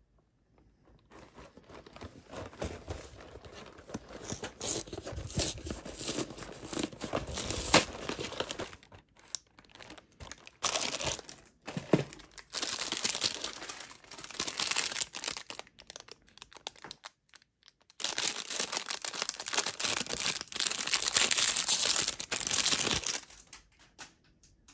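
Plastic wrapper of a Rice Krispies Treats bar being crinkled and torn open by hand, in several bursts with short pauses, the densest crinkling near the end.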